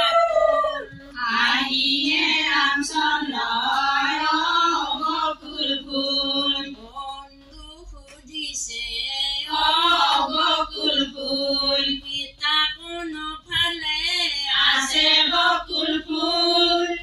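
A group of women singing an Assamese biya naam (traditional wedding song) together in unison, with no instruments. The singing drops quieter for a moment around the middle, then the full group swells again.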